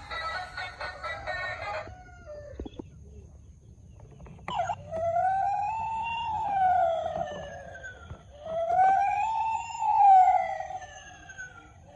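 Toy police car's electronic siren wailing, starting about halfway in. Its pitch rises and falls slowly, running through two full cycles and starting a third at the end. Background music is heard briefly at the start.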